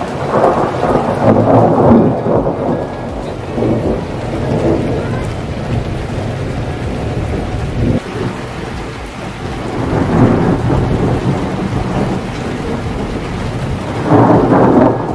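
Thunder rumbling in rolling swells over steady rain, loudest about a second in, again around ten seconds in and near the end.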